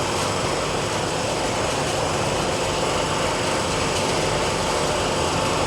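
Commercial freezer's newly fitted 4 hp Copeland semi-hermetic compressor and condensing unit running steadily after a restart.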